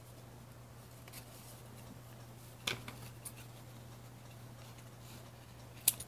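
Quiet hand work tying string through a paper tag, with a few faint clicks and rustles over a faint steady hum, then one sharp snip of scissors cutting the string just before the end.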